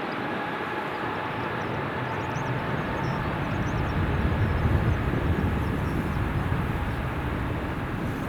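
Jet airliner passing, its engines giving a steady whine over a rumble that is loudest around the middle. Wind buffets the microphone.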